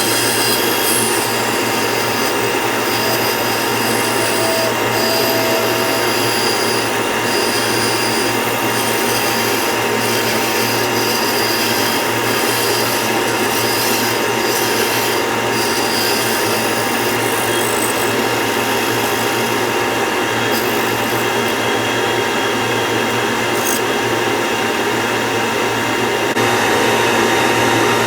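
Rikon 10-305 bandsaw running steadily with a constant motor hum while its blade cuts wood, here a circle being cut with a circle-cutting jig. The level rises slightly near the end.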